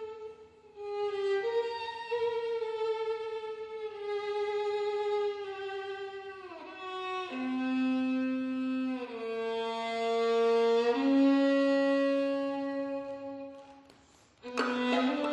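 Slow bowed violin music: long held notes sliding into one another, dropping to lower sustained notes about seven seconds in, fading almost out near the end before a sharper phrase breaks in.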